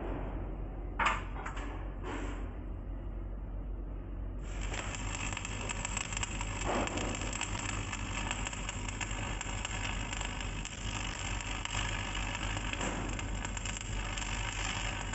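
A few light metallic clicks as the workpiece is handled. About four seconds in, a stick-welding arc strikes on thin iron angle and crackles steadily, over a steady low hum.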